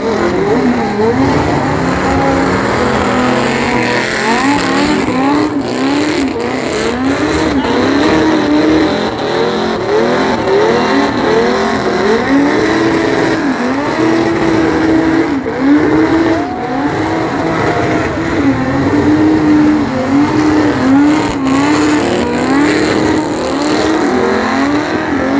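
A car's engine revving hard during a burnout, its pitch rising and falling over and over as the throttle is worked. Under it runs the hiss and squeal of the rear tyres spinning on the pavement and throwing thick smoke.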